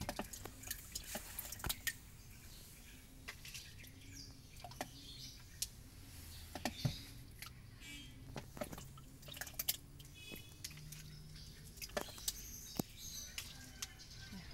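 Plastic ladle scooping jelly topping from plastic tubs into a plastic cup: scattered light clicks and taps of plastic on plastic at an uneven pace, over a faint low hum.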